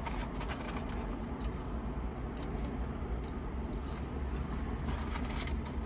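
Red paper McDonald's fry carton rustling and scraping as fries are picked out of it and eaten, with scattered soft clicks, over a steady low rumble in the car cabin.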